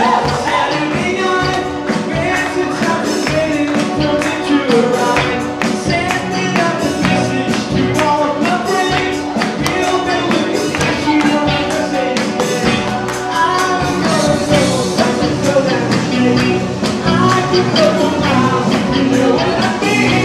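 Live band music: singers over guitar and an electronic drum kit, with a steady beat.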